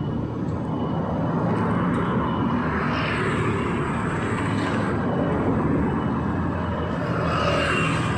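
Street traffic passing close by: a steady engine rumble, with vehicles swelling past about three seconds in and again near the end.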